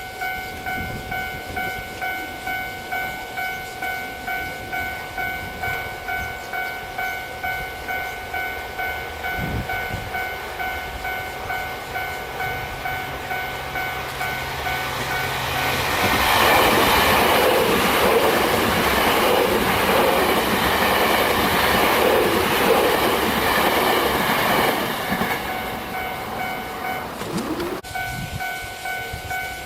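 Japanese level-crossing alarm ringing in a steady repeating clang. Starting about halfway through, a train passes over the crossing for about nine seconds, its rushing and rail clatter louder than the bell, and then the alarm rings on alone.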